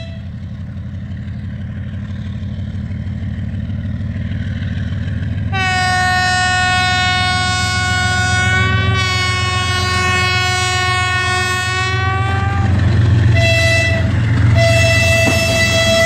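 TE33AC diesel-electric freight locomotive approaching, its engine rumble growing steadily louder. About five seconds in it sounds a long horn blast of some seven seconds, then two shorter horn blasts near the end.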